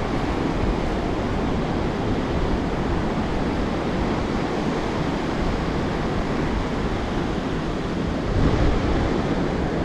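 Pacific Ocean surf washing steadily onto the beach, with wind buffeting the microphone; the wash swells a little near the end.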